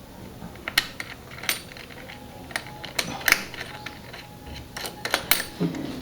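Scattered sharp metallic clicks and clinks, about eight in a few seconds, from the hardware of a CPU cooler's AM4 mounting bracket and backplate being handled and fitted onto the motherboard.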